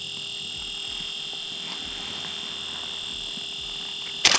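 A steady, high-pitched whine made of several fixed tones, unchanging throughout. Near the end a loud, sharp clatter of knocks and rustling breaks in as the caught crappie is brought right up to the camera.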